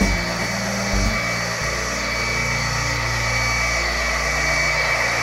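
Model diesel locomotives running past on a layout: a steady low diesel engine sound from their sound systems whose note shifts a couple of times, with a steady high whine over it.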